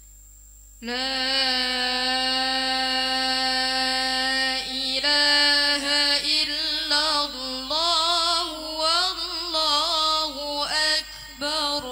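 A young woman reciting the Qur'an in melodic tilawah style into a microphone. It begins about a second in with one long held note, then turns into winding, ornamented phrases broken by short pauses for breath.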